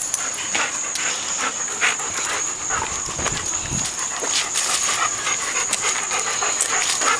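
Golden Retriever panting steadily, quick rough breaths.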